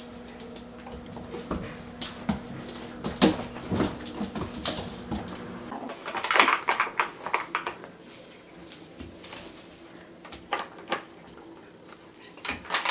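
Scattered clicks, knocks and short rustling bursts as a young coyote moves about and mouths objects, loudest about six to seven seconds in. A steady low hum stops a little before six seconds.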